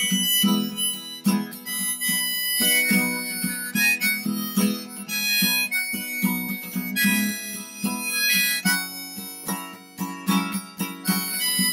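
A harmonica played in a neck rack, carrying the melody over a capoed acoustic guitar strummed steadily.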